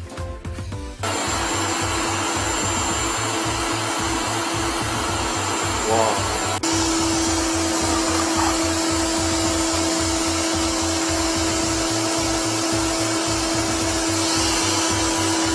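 Wet/dry shop vacuum switched on about a second in and running steadily with a whine, its hose nozzle sucking at a clogged toilet's drain outlet. A click about six and a half seconds in, after which the whine is stronger.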